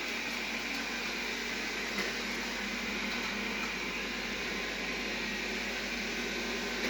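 Xiaomi Mijia LDS robot vacuum cleaner running steadily, its suction fan and brushes giving an even whirring noise, with a light click about two seconds in and another near the end.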